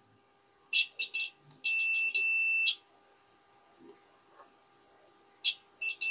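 Multimeter continuity beeper sounding as the probes make contact: a few brief chirps, then a steady beep of about a second, and after a pause more chirps and another steady beep near the end. The beep shows an unbroken connection between the antenna socket and the soldered connector, which checks out fine.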